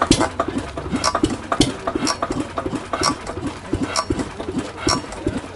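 Yanmar 2SG marine diesel engine being turned over by hand crank, giving a quick rhythmic chuffing of several beats a second with a sharper knock about once a second.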